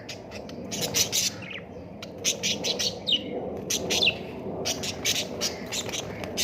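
Birds chirping in rapid clusters of short, sharp calls, with two brief downward-sliding notes about three and four seconds in, over a steady low background noise.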